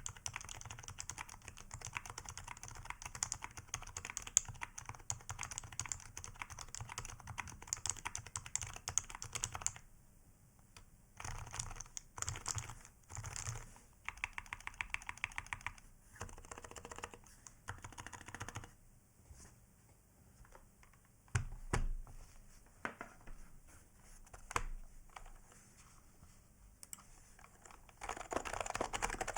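Keys typed on a Matrix Falcon keyboard with Topre electrostatic capacitive switches (aged HHKB Pro 2 domes, #5 silencing rings), a steady run of keystrokes for about the first ten seconds. Then groups of keys are mashed at once in short bursts, with scattered single heavy strokes. Near the end a different Topre keyboard, a stock HHKB Pro 2 Type-S, is typed on steadily.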